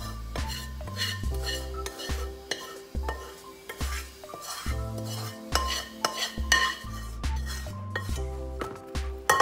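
Background music with a steady, repeating bass line, over clinks and scrapes of a metal spoon and pan rim against a plastic container as sugar syrup is poured onto fried boondi.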